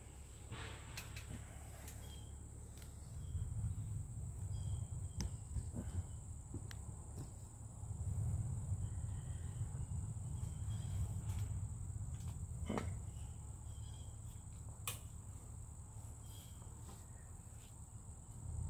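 Steady high-pitched insect chorus droning through the woods, with faint short chirps repeating underneath. A low rumble on the microphone swells and fades a couple of times, and a few light knocks and clicks sound, loudest about a third and near four-fifths of the way through.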